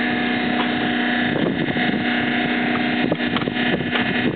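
An engine running steadily, a constant drone of several even tones, with wind on the microphone.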